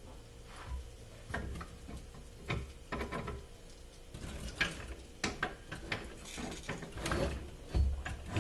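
Irregular metallic clicks and knocks of tools and parts as a minivan's fuel tank is lowered and worked loose from the filler inlet, coming more often in the second half.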